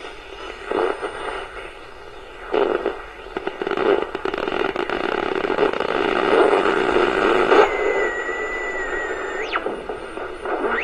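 Small pocket AM radio's speaker giving static and hiss while being tuned between stations, with a steady high whistle coming in about three-quarters of the way through and sliding away after about two seconds: the interference whistle typical of tuning across the AM band.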